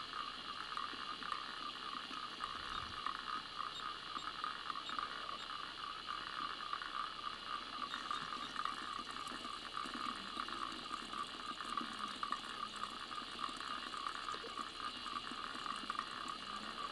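Small mountain spring trickling steadily: a thin flow of water at the very head of a stream.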